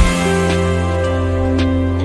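Background music: soft, gentle instrumental with held chords and a few light plucked notes.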